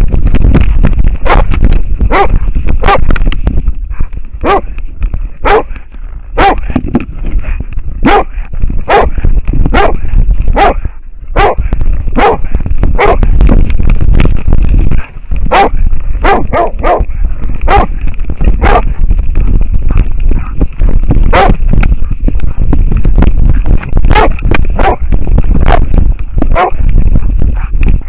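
American foxhound barking repeatedly at a wild boar, about one to two barks a second, picked up very close and loud by a camera on its own harness. A steady low rumble runs underneath.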